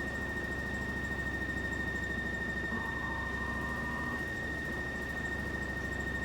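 Washing machine running with an abnormal noise that has come back: a steady high-pitched whine over a low hum, joined about three seconds in by a lower tone that lasts about a second and a half before dropping away.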